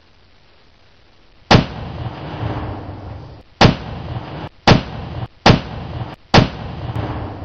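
A peanut butter can blowing up: five loud bangs, the first about a second and a half in and the rest over the next five seconds, each trailing off in a short rumble.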